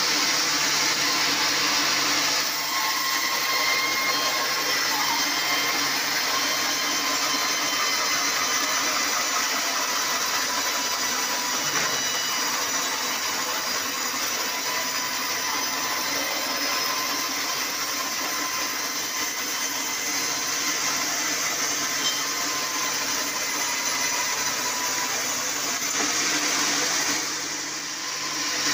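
Band sawmill running, its blade sawing lengthwise through a black acacia log with a steady, high-pitched cutting noise; the noise dips briefly near the end.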